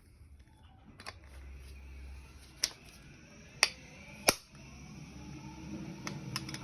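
A hammer driving a flat punch against a classic Mini CV joint to shock it off the driveshaft splines. There are three sharp metal strikes in the middle, with a lighter tap before them and a few light taps near the end.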